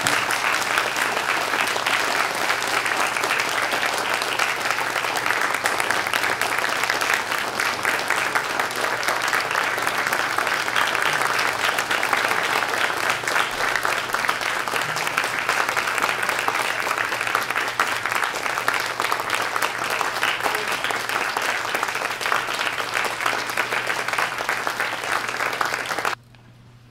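Audience applauding, dense steady clapping that cuts off abruptly near the end.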